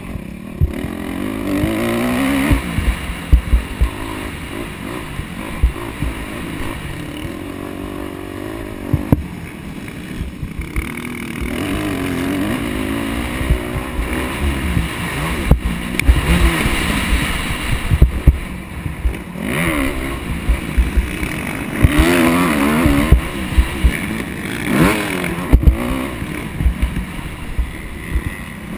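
Dirt bike engine ridden hard around a motocross track, the revs climbing and dropping repeatedly through the turns and straights. Sharp low thumps and buffeting from the helmet-mounted camera run through it.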